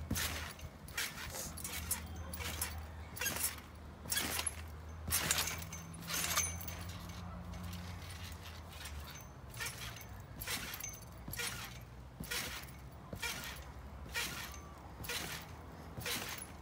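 Trampoline being bounced on: a sharp squeak and thud from the mat and springs each time the jumper lands, about once a second in a steady rhythm.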